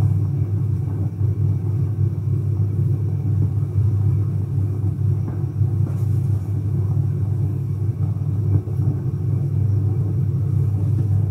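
A steady low hum that does not change, with no other clear sound over it.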